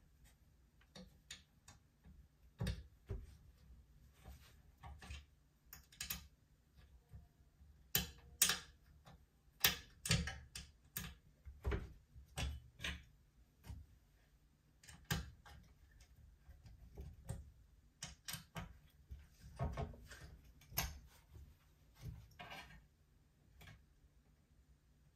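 Irregular clicks, taps and knocks of hard parts being handled, scattered unevenly with the loudest cluster about a third of the way in.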